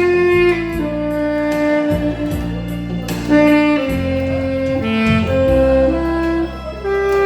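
Saxophone playing a slow melody of long held notes over a backing track with a steady bass line.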